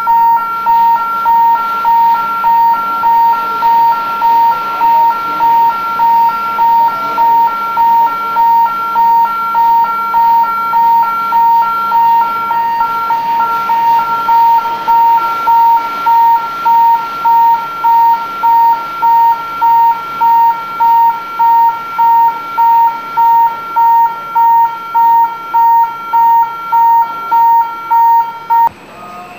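Industrial electronic warning beeper sounding a steady high tone a little more than once a second over a low machinery hum. It stops shortly before the end.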